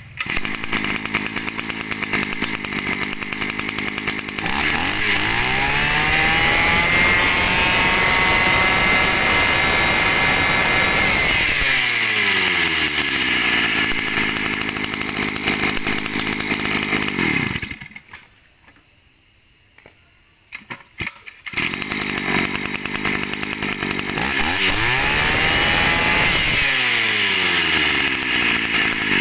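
Mitsubishi T170 two-stroke brush-cutter engine (33 cc, 37 mm bore, top-mounted fuel tank) running loud. It idles, is revved up and held at high revs for several seconds, and drops back to idle. About 18 seconds in it cuts out for some three seconds, then runs again and is revved up once more.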